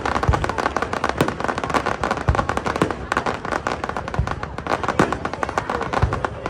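Fireworks display: dense, rapid crackling and popping throughout, with four deep booms from bursting shells about two seconds apart.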